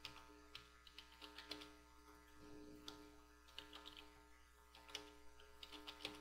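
Faint computer keyboard typing: irregular, quiet key clicks over a steady low electrical hum.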